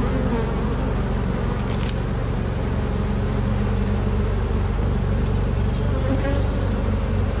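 Honeybees from an opened hive buzzing in a steady, even drone.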